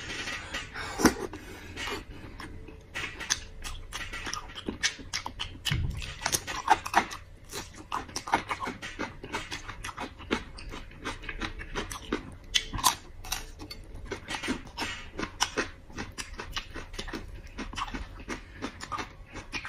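Close-up wet chewing and lip-smacking of soft, fatty lamb tail, a steady run of irregular short smacks and squelches.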